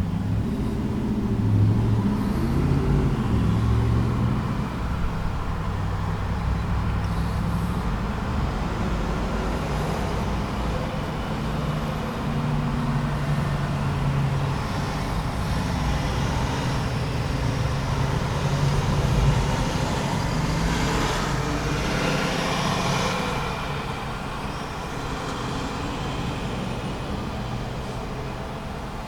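Road traffic at a busy intersection: car, truck and bus engines running, with the deepest engine rumble in the first few seconds and a louder swell of passing-vehicle noise about twenty seconds in.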